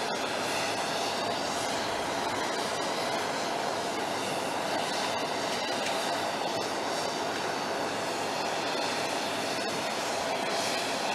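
Steady whine and rush of jet engines running, unbroken throughout.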